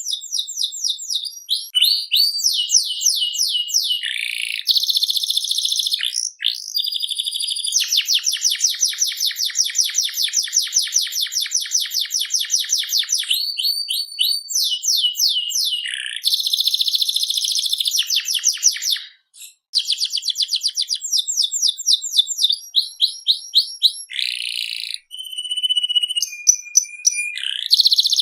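Canary singing a long, nearly continuous song of rapid rolling trills and repeated chirps, with a short pause about 19 seconds in.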